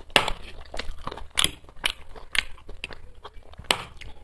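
Close-miked chewing of a mouthful of chow mein, a run of short sharp wet mouth clicks several times a second.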